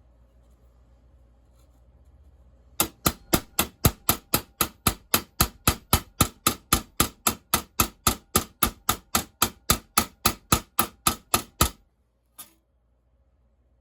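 A ball peen hammer peening the rivets of a new sprocket nose on a STIHL chainsaw bar. It gives a fast, even run of sharp strikes, about three and a half a second for roughly nine seconds, then one lighter tap.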